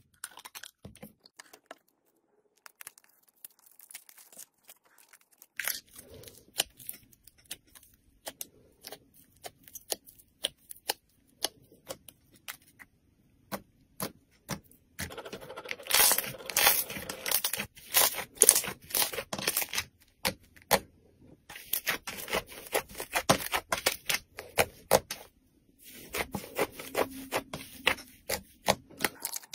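Thick white slime squeezed, poked and pulled apart by hand, crackling with many sharp little pops and clicks. The clicks are sparse at first, then come thick and fast in long runs in the second half.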